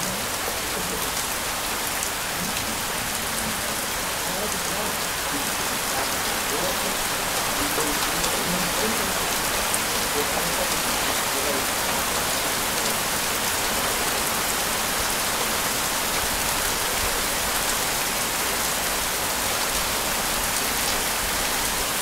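Heavy rain falling steadily, an even dense hiss.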